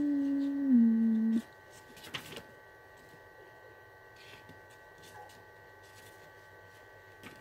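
Sony AIBO ERS-11x robot dog's speaker giving a two-note electronic beep that steps down to a lower note and stops about a second and a half in. After it comes a faint click and a faint steady hum.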